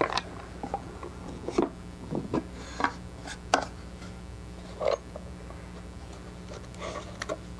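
A small wooden box being handled: set down, its lid lifted off and laid aside, and things inside moved about, giving a scatter of light knocks and taps with some rustling, over a steady low hum.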